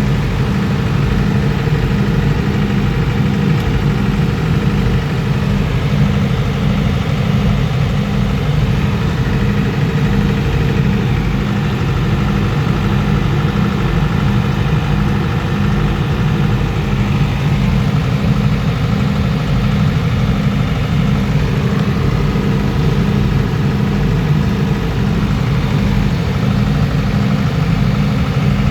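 Diesel generator set of a railway power car running steadily under load, a loud constant engine drone with an even low pulsing throb.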